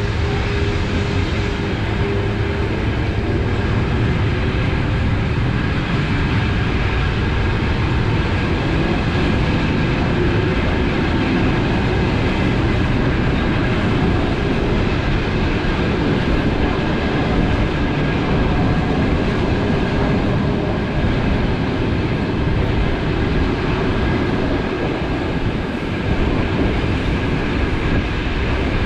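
Running noise of a DC electric suburban train at speed, heard from inside the carriage: a steady rumble of wheels on rail with a faint whine above it. An oncoming electric train passing alongside fades out about a second and a half in.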